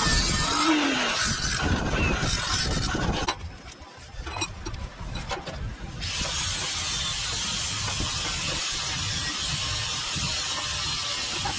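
Abrasive cut-off saw grinding through a galvanized steel box-section tube for about three seconds, then stopping. A few light clicks of metal being handled follow, and a steady hiss fills the last half.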